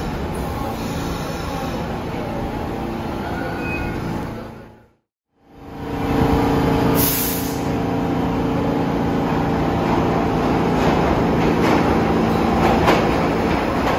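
New York City subway trains running through a station: steady rumbling train noise that breaks off to silence about five seconds in. It then resumes with a steady motor hum and a short hiss of air about two seconds later, as a train comes in on the near track.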